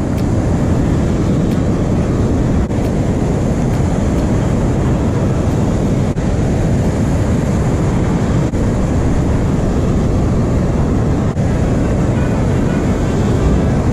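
Loud, steady rush of water pouring over a dam spillway and churning through the river rapids below it.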